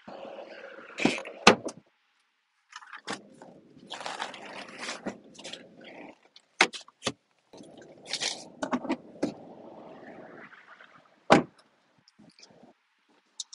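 Gear being handled in an SUV's open rear cargo area: rustling, scraping and clattering, with a few sharp knocks, the loudest about a second in and again near the end.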